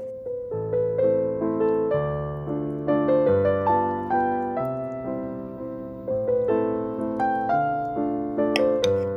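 Background piano music: a gentle melody of single struck notes over a slow bass line.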